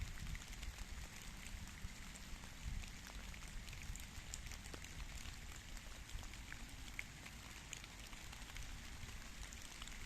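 Light rain falling on leaves and ground, a steady patter with many small scattered drop ticks, over a low rumble.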